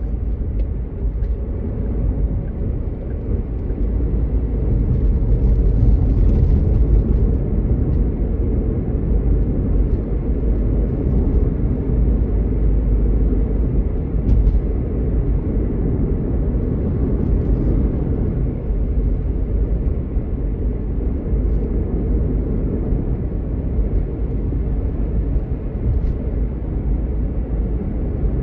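Steady low rumble of a car driving on an asphalt road, heard inside the cabin: tyre and engine noise.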